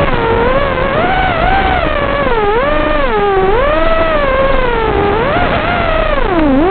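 FPV quadcopter's electric motors whining, their pitch continually rising and falling as the throttle changes.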